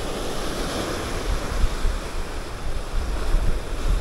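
Rough sea surf washing steadily, with wind buffeting the microphone in low rumbles.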